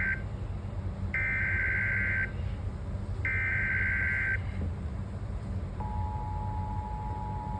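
Emergency Alert System header: a screeching digital data burst ends just after the start, two more identical bursts follow, each about a second long with a second's pause between, and about six seconds in the steady two-tone EAS attention signal begins and holds. A low hum runs underneath.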